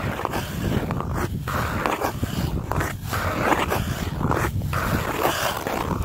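Ice skate blades scraping and gliding over frozen pond ice in repeated strokes, with brief breaks between strides.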